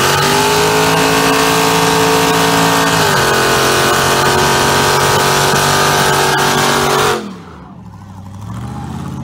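Car doing a burnout: the engine is held at high revs over a steady hiss of spinning tyres for about seven seconds, with a brief dip in revs partway through. It is then let off sharply and the revs drop back to a low run.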